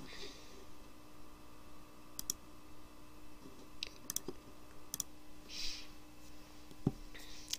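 Computer mouse clicking: a handful of sharp clicks spread over several seconds, several of them in quick pairs, over a faint steady electrical hum.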